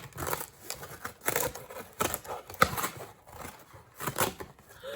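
Mailer packaging being torn and rustled open by hand: irregular rips and crackles of paper and cardboard.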